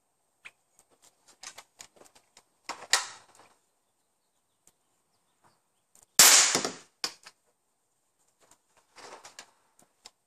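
BB gun shooting at compressed air cans: scattered clicks, a sharp pop about three seconds in, and, about six seconds in, the loudest bang, which trails off over most of a second as a hit can of compressed air bursts.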